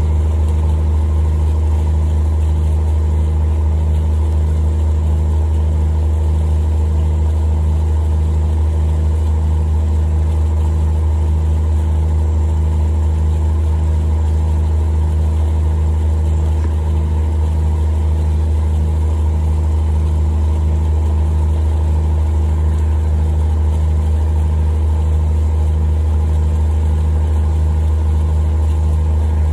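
Steady motor drone: a loud low hum with a throb that pulses about one and a half times a second.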